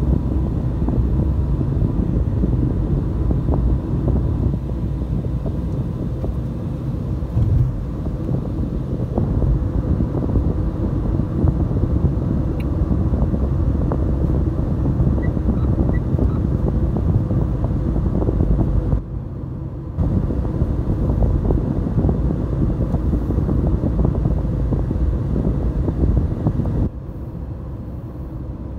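Car interior road and engine noise while driving: a steady low rumble, which drops abruptly in level for a moment about two-thirds of the way through and again near the end.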